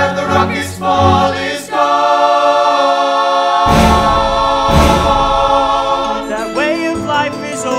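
Choir of voices singing a sustained chord in a musical-theatre number, with two deep hits about four and five seconds in.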